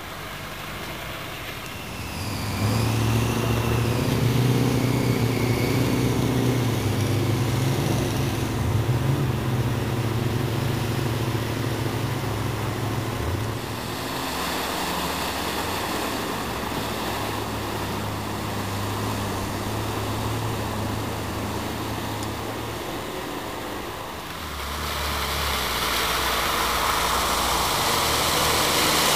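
Land Rover 4x4 engines running under load as the vehicles drive through a muddy water pit. In the first part the engine tone is strongest. In the second part a Land Rover Discovery's engine runs under rushing, splashing water, which grows louder near the end as the bow wave breaks over the bonnet.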